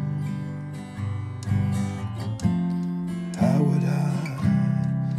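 Acoustic guitar, an Ibanez Performance, strumming the open chords of an F–C–G progression. A new chord is struck about once a second and left to ring.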